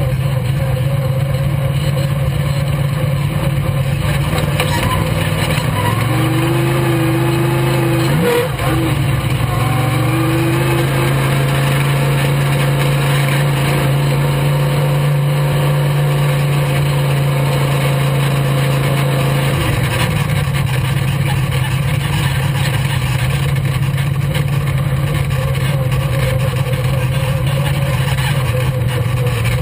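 Dirt-track race car engine running steadily at low revs while the car rolls slowly, its note shifting in pitch a few times, with a quick rev about eight seconds in.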